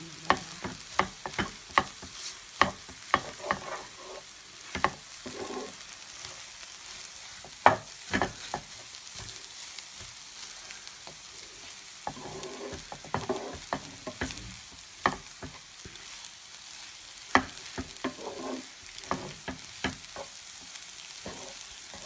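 Wooden spatula stirring and scraping a frying pan of egg kothu, with irregular sharp knocks against the pan in clusters over a steady sizzle.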